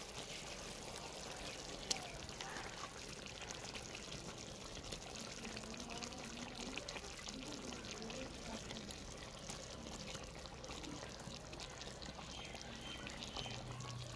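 Raw chicken pieces sizzling in hot masala in an aluminium pot: a steady hiss with fine crackling all through. One sharp click comes about two seconds in.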